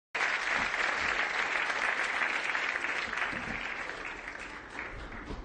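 Studio audience applauding, starting abruptly at full strength and gradually dying away over the last couple of seconds.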